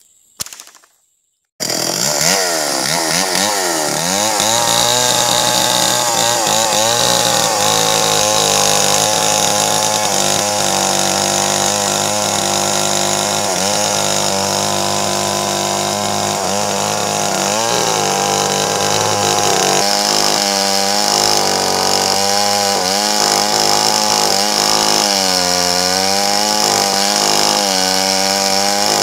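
Stihl MS 381 two-stroke chainsaw ripping lengthwise along a large red meranti log. It starts abruptly about a second and a half in, and the engine pitch keeps rising and dipping as the chain bites into the wood.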